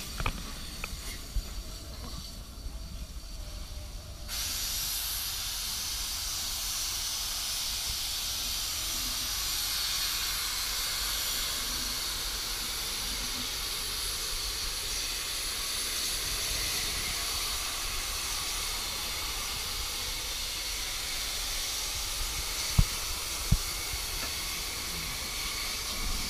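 Steam locomotive venting steam: a steady hiss that starts suddenly about four seconds in and carries on unbroken. Two sharp knocks sound close together near the end.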